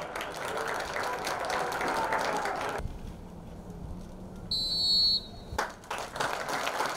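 Stadium crowd noise, then a quieter stretch broken about four and a half seconds in by one long blast of a referee's whistle, under a second long. The crowd noise rises again near the end.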